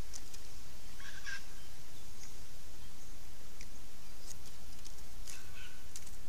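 Steady hiss and low hum from a trail camera's microphone, with two brief bird calls about one second and five seconds in, and a few faint clicks.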